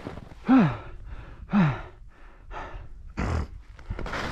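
A man breathing hard. There are two voiced sighing exhales that drop in pitch, then several short, sharp breaths, the last one loud. Just before the end a steady rushing noise begins.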